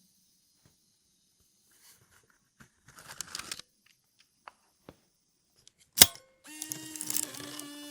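Sony DCR PC115E MiniDV camcorder handled up close: small plastic clicks and a brief scraping rattle, then one sharp loud click about six seconds in. A small motor in the camcorder then whirs with a steady hum for about a second and a half.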